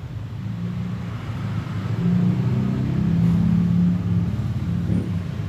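Low engine rumble like a motor vehicle's, growing louder about two seconds in and easing off near the end.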